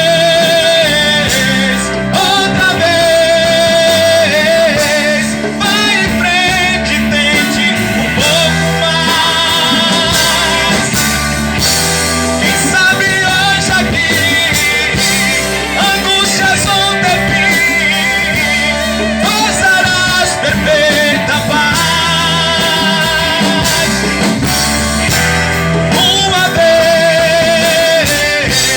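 A live band playing an upbeat hymn with singing over it.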